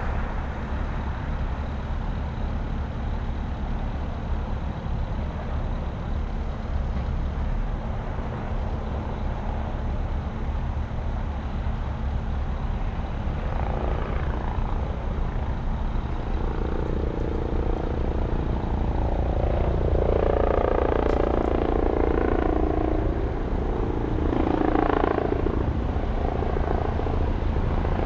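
Steady low rumble of vehicle noise. In the second half a louder engine drone builds and swells twice.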